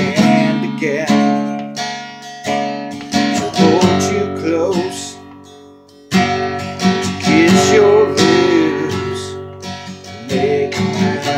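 Acoustic guitar strummed in slow chords, each left to ring, as the song's closing instrumental. The strumming dies down just before six seconds in, starts again with a strong strum, and ends on a chord left ringing out.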